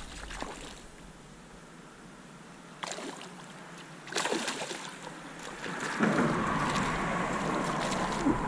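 A hooked smallmouth bass splashing and thrashing at the water's surface, with sharp splashes about three and four seconds in. From about six seconds in the splashing is steady, with the whir of a reel being cranked as the fish is brought in.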